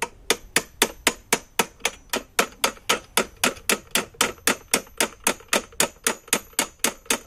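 Hammer striking a steel lawnmower handlebar in rapid, even blows, about four a second, each with a high metallic ring.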